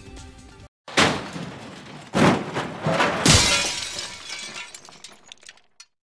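Vehicle collision crash sound: three loud crash impacts about a second apart, each ringing out, the last one dying away slowly. A little background music plays before them and cuts off just before the first impact.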